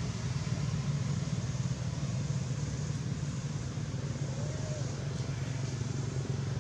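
A steady low rumble with a background hiss that does not change.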